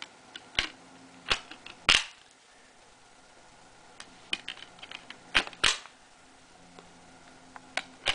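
Blu-ray discs being pressed back onto the plastic hubs of a fold-out disc case: a series of sharp plastic clicks and snaps, some in quick pairs, the loudest about two seconds in.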